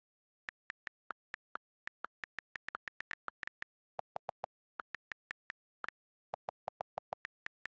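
Smartphone on-screen keyboard key clicks as a text message is typed: quick, faint taps about three to four a second, with short pauses, and two runs of deeper-pitched key clicks about four seconds in and again past six seconds.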